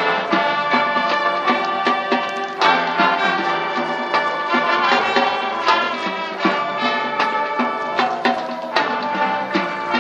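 High school marching band playing: massed brass holding sustained chords over drums and front-ensemble mallet percussion, with sharp percussion hits throughout.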